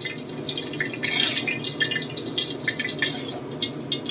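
Eggplant frying in hot oil in a wok: a steady sizzle full of small crackles and pops. A metal utensil knocks against the wok about a second in and again about three seconds in.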